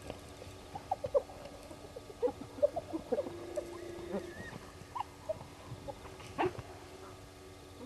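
Scattered short animal squeaks and chirps, some sliding briefly in pitch, with one steady held note a little after the middle and a single sharp click or knock near the end.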